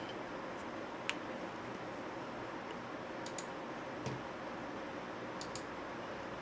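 A few sharp computer mouse clicks, some in quick pairs, over a steady low hiss of room and microphone noise.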